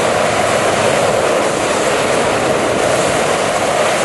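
Propane burner of a large hot-air balloon firing, a steady roar with no break.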